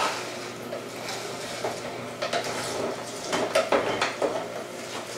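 Twin-gear juicer crushing leafy greens as they are pushed down the feed chute with a plunger: irregular crackling and clicking from the gears, with a few sharper knocks, over a faint steady motor hum.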